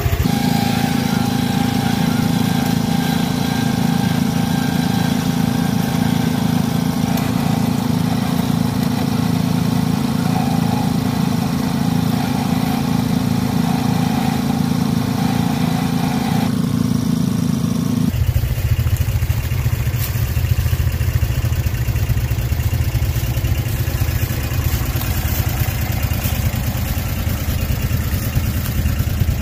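ATV-mounted electric winch hauling its cable in under load, a steady drone over the running engine, for about the first eighteen seconds. Then the winch stops and the ATV engine idles low.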